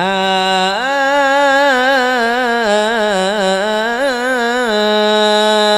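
A man sings one long, ornamented melismatic sholawat phrase solo into a microphone. He holds a low note, rises about a second in to a higher line full of quavering turns, then settles back to the low note near the end.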